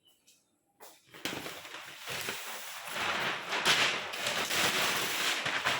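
A sheet of cardboard being handled and laid down on a work surface: dry scraping and crackling that starts about a second in and grows louder toward the end.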